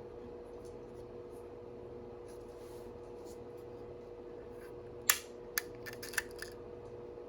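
Support material on a 3D-printed plastic part being worked free: faint scratching at first, then a loud sharp crack about five seconds in, followed by a quick run of smaller snaps and clicks as the supports break away.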